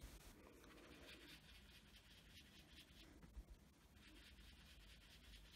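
Faint soft rubbing of a foam ink-blending sponge against card stock, as ink is worked onto the paper.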